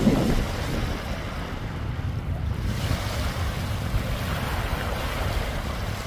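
Small sea waves lapping and washing onto a shallow shore, with a swell of wash about halfway through. Wind buffets the microphone, adding a steady low rumble under the water.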